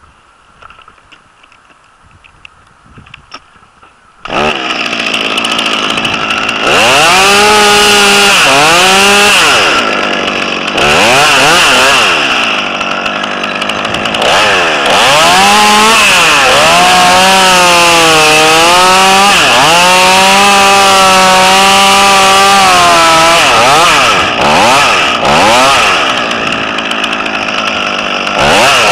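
Two-stroke chainsaw starting up about four seconds in, idling briefly, then running at full throttle while cutting pine. Its engine pitch sags and recovers again and again as the chain bites into the wood.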